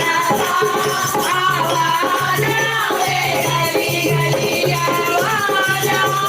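Kirtan music: a devotional bhajan sung with a rattling hand percussion and a repeating low beat.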